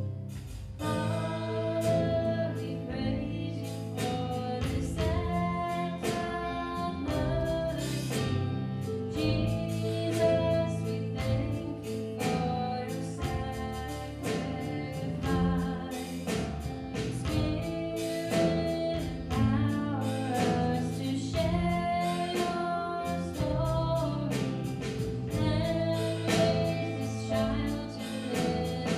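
Small worship band of singers, upright bass and other instruments playing a song with sung vocals and a steady beat.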